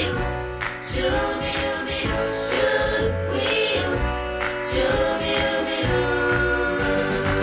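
A 1964 pop record playing: sung vocals over a band with a steady bass line.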